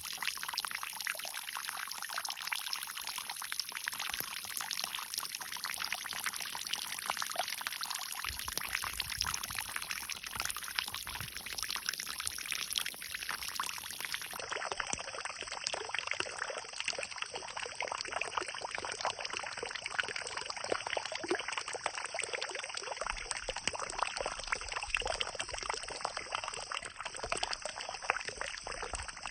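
Water pouring and splashing steadily, a continuous trickling rush.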